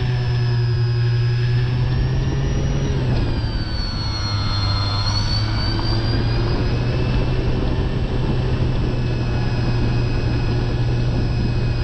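Radio-controlled model airplane flying, its motor whine steady over a loud low hum; the whine drops in pitch about three seconds in and rises again a couple of seconds later as the plane passes.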